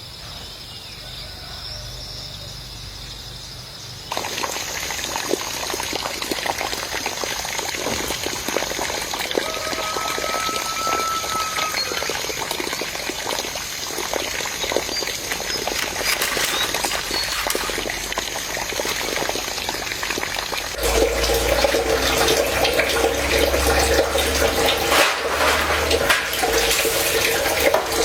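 Water running and splashing, a steady rushing with many small splashes that grows louder and fuller about 21 seconds in. Insects chirp steadily for the first few seconds before the water starts.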